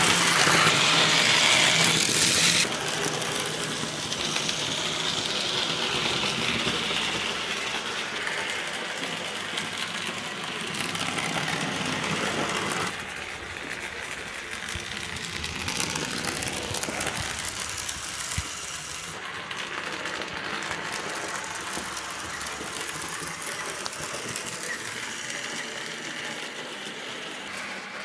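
Hornby BR Class 7MT Britannia model steam locomotive running fast round a model railway: the tender-mounted motor whirs and the wheels clatter on the track joints. It is loudest for the first two or three seconds as it passes close, then runs on quieter and steady, dropping again about halfway through as it moves away round the layout.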